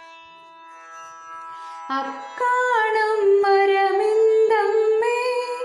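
A woman singing the opening line of a Malayalam children's poem to a Carnatic-style melody, over a soft steady drone. The first two seconds hold only the drone; then the voice enters with long held notes that bend and glide.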